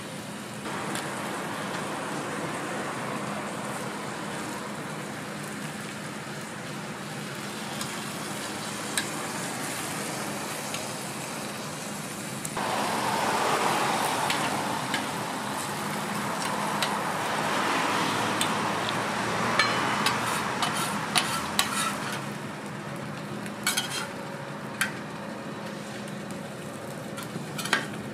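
Egg, bacon and ham frying on a flat-top griddle, a steady sizzle that grows louder about halfway through. Near the end come a few sharp clicks of metal utensils against the griddle and egg molds.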